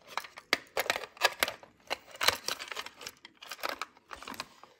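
Handling noise of a small watch box: an irregular run of sharp clicks and taps with rustling, as the lid is pressed and worked because it will not close properly.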